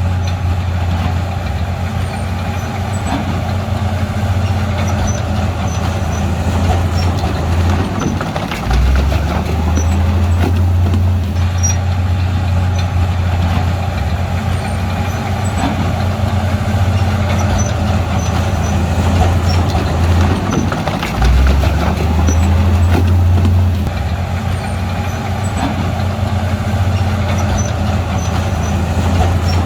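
Heavy diesel engine of an earthmoving machine running under load with a steady low hum. The engine note shifts about nine seconds in and again about twenty-one seconds in.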